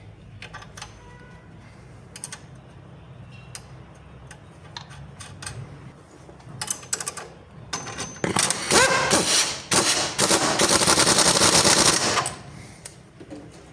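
Pneumatic impact wrench on a stabilizer link nut: a few short bursts with a brief whine as it spins up, then about two seconds of steady rapid hammering that stops suddenly near the end. Scattered metal tool clicks before it.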